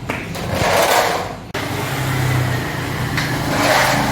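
Small electric motor of a battery-powered toy truck whirring steadily, with a brief cut about a second and a half in before it runs on.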